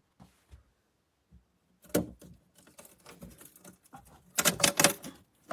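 Irregular clicks, knocks and light rattling, sparse at first and growing busier and louder about four seconds in.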